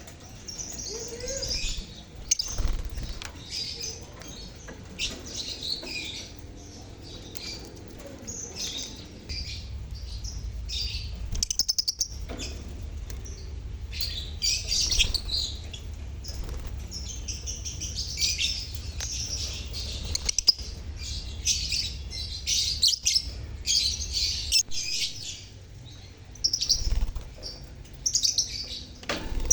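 A colony of lovebirds (Agapornis) chirping and chattering all at once, a dense, continuous flock of high-pitched calls, with a few sharp clicks among them.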